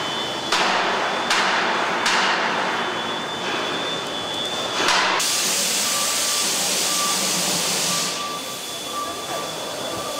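Factory-floor machinery noise: several sudden hissing bursts, each dying away within a second or so, over a thin steady whine; about five seconds in it changes abruptly to a steadier high hiss with an intermittent beeping tone.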